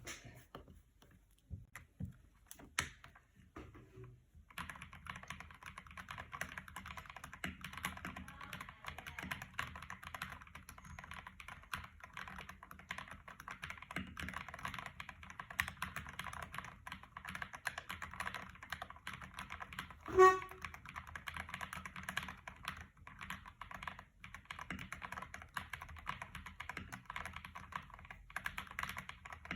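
Typing on a cheap, poor-quality computer keyboard: a few scattered key presses, then fast continuous typing from about four seconds in. About two-thirds of the way through, a brief loud tone sounds over the typing.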